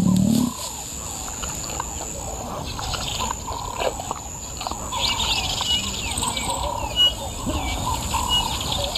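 Several birds calling and chirping in a dense natural chorus over a steady high-pitched drone, with a few clear whistled notes in the second half.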